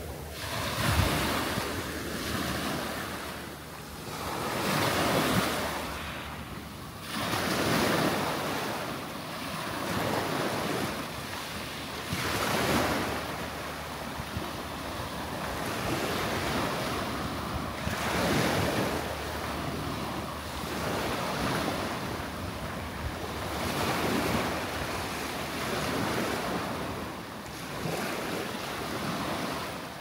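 Small waves breaking and washing up a coarse, shelly sand beach, then drawing back. Each wash swells and fades about every two to three seconds in a steady surf hiss.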